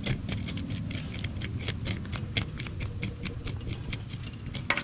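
Handheld fish scaler scraping scales off a bluegill, a rapid run of short, scratchy strokes at several a second as the scales come loose, with one sharper click near the end.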